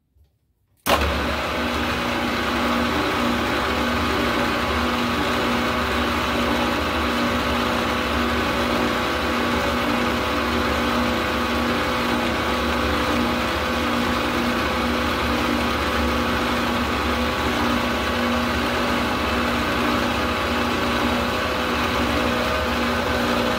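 Milling machine spindle motor running steadily at about 1000 RPM, turning a ball bearing edge finder, with a hum made of several fixed tones. It starts abruptly about a second in and holds level.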